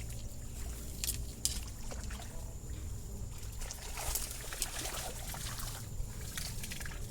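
Water trickling and splashing, with a few sharp clicks scattered through it, over a steady low rumble.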